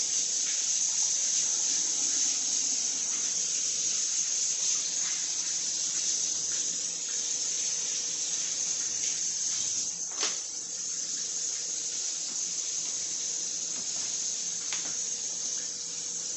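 Kitchen tap running into the sink while hands are washed under it, a steady hiss. A sharp click comes about ten seconds in, after which the sound is a little quieter.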